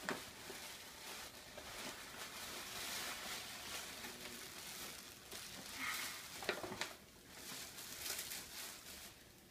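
Tissue paper rustling and crinkling as it is pulled out of a glossy gift bag, with a few sharper crackles.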